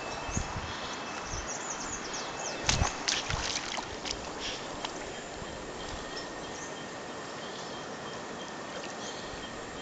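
Shallow river flowing over rocks, a steady rush of water, with a cluster of sharp knocks about three seconds in.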